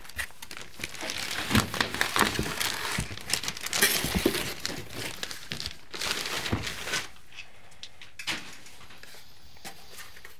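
Clear plastic bag crinkling and crackling as a network switch is pulled out of it, for about seven seconds. Then it goes quiet apart from a single soft knock about eight seconds in.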